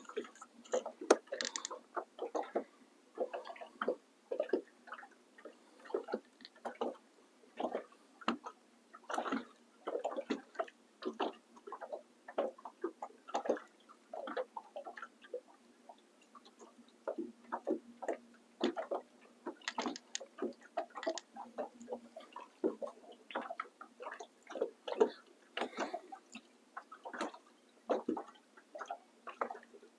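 Small waves lapping and slapping against a boat hull: uneven little knocks and splashes, two or three a second.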